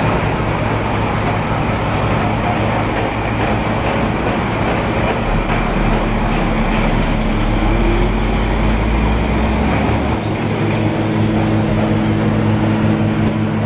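A large vehicle or machine engine running steadily with a mechanical hum. A deeper drone joins it about five seconds in and stops about ten seconds in.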